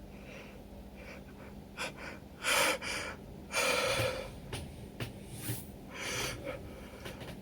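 A person's sharp gasping breaths and nose snorts in a sneezing fit set off by chhinkni, the sneeze-inducing herb. There are several separate breaths; the two loudest come about two and a half and three and a half seconds in, the second one longer.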